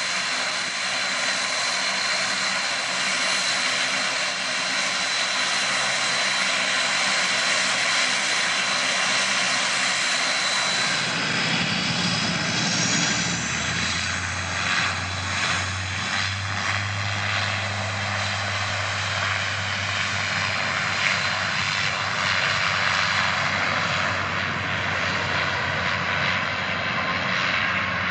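A twin rear-engined regional jet's turbofans run with a steady high whine. About 11 seconds in this gives way to a De Havilland Canada Dash 8-400 turboprop, whose propellers set up a strong low drone.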